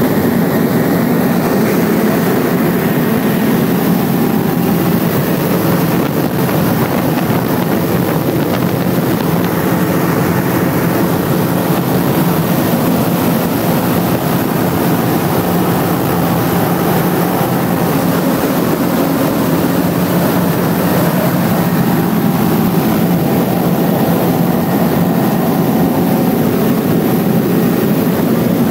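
Remos GX light-sport aircraft in flight: the steady drone of its Rotax 912 engine and propeller, heard from inside the cockpit with the doors removed, mixed with the rush of wind through the open door frames.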